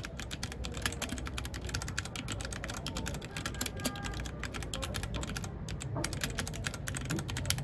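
Fast, continuous typing on a mechanical keyboard, a dense run of sharp key clicks that breaks off briefly about five and a half seconds in. A steady low hum lies underneath.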